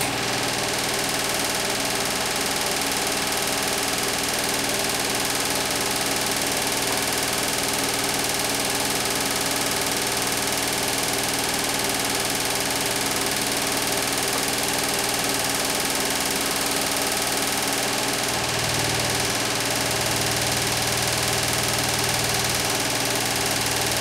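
Beko WTK104121W front-loading washing machine spinning its drum at a steady high speed: a constant rush with a steady motor whine, and a deeper hum coming in about three-quarters of the way through.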